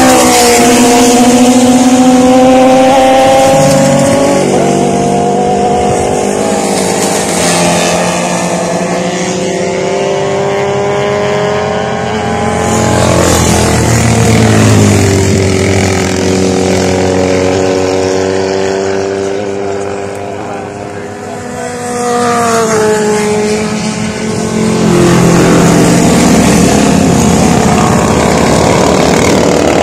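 Classic racing motorcycles passing one after another at speed, engines running at high revs. The engine pitch falls as each bike goes by and rises again as the next comes on, with a brief lull about two-thirds of the way through.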